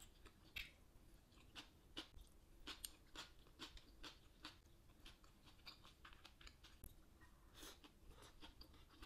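A person chewing food, faint, with irregular soft wet clicks and smacks of the mouth.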